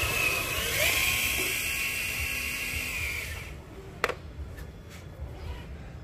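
Electric motor and gearbox of an RC crawler truck whining under throttle, the pitch rising a little about a second in, then cutting off about halfway through, followed by a single sharp click.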